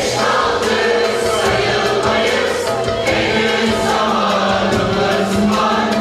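Mixed choir of men and women singing a Turkish classical (Türk sanat müziği) song, accompanied by ouds.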